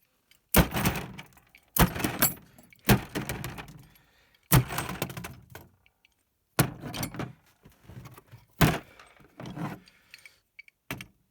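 Plastic-cased Belkin router being smashed: about six hard blows one to two seconds apart, each followed by a brief rattle of the case and loose parts.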